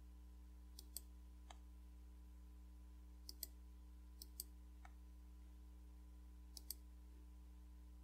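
Faint computer mouse button clicks, each a quick press-and-release pair, four times, with a few softer single ticks, over a low steady electrical hum.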